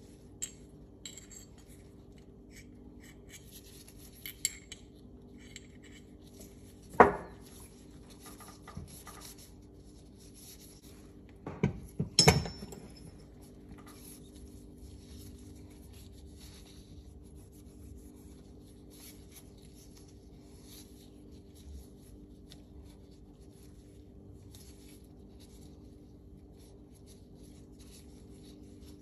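Metal pistol parts of a field-stripped Tanfoglio Stock II being handled and set down: small clicks and taps, a sharp knock about seven seconds in and a cluster of knocks around twelve seconds. A faint steady hum runs underneath.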